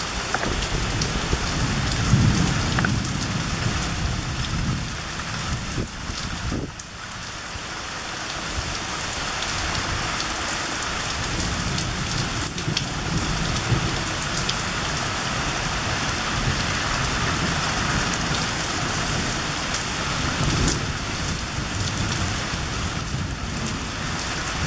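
Steady, heavy rain pouring down onto trees and leaves, with a low rumble about two seconds in.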